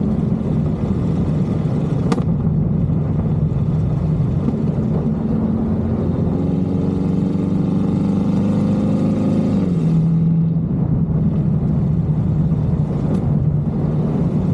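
Camaro SS V8 exhaust running with a steady note. The engine revs up slowly in the middle, then drops back sharply. A sharp exhaust pop comes about two seconds in and another near the end.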